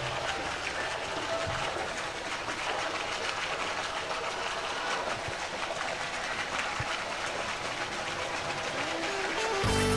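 Steady outdoor background noise with faint scattered ticks and faint distant voices; music with a strong low beat starts just before the end.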